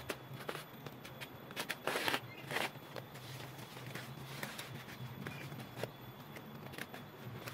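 Rustling and crackling of a stitched leaf thatch panel as hands smooth and fold its leaves, with scattered small clicks and two louder rustles about two seconds in. A faint steady low hum sits underneath.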